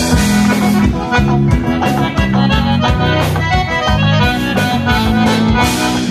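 Live band playing an instrumental break led by accordion, with bass and a steady drum beat.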